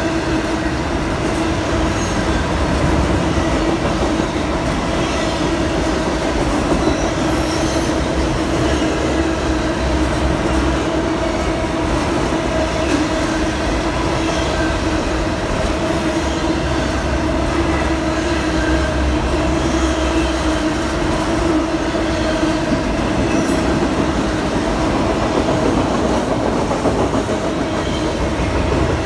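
Freight train of enclosed autorack cars rolling past close by: a steady rumble of wheels on rail with a steady ringing tone held through it.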